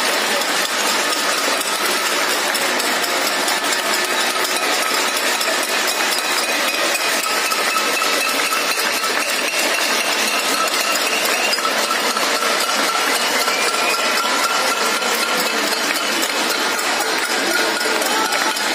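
Many people on the surrounding balconies and rooftops clapping and banging things together in a dense, unbroken clatter. A faint held tone slowly rises in pitch through the second half.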